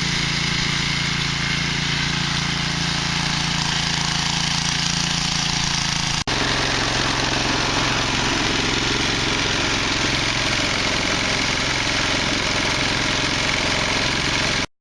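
Cub Cadet 926 STE snowblower's single-cylinder engine running steadily, with its newly replaced drive cable working. There is a brief break about six seconds in, after which it runs at a slightly lower pitch until it cuts off at the very end.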